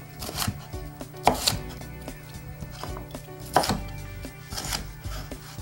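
Chef's knife chopping red bell pepper on a wooden cutting board: sharp, uneven knocks as the blade strikes the board.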